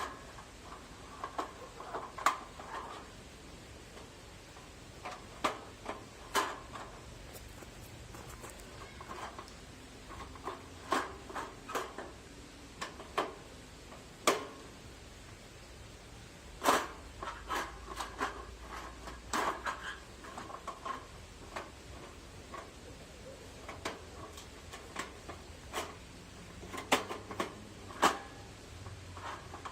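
Sheet-metal panels of a folding wood-stove chimney being handled and fitted together: irregular metallic clicks, taps and light clanks as the nubs are pressed into their holes.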